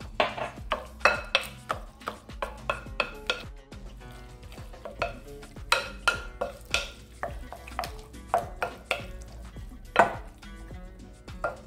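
Wooden spoon stirring and mashing chunky guacamole in a glass bowl: irregular wet scrapes and clicks of the spoon against the glass, about two a second.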